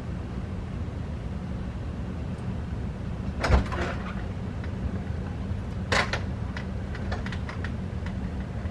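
Steady low machine hum, with a sharp knock about three and a half seconds in and another about six seconds in, followed by a few light clicks.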